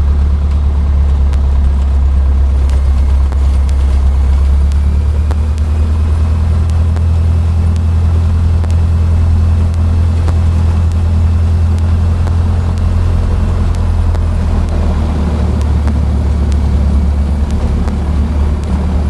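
Cessna 152's Lycoming O-235 four-cylinder engine and propeller running steadily at low power, heard from inside the cockpit while taxiing after landing.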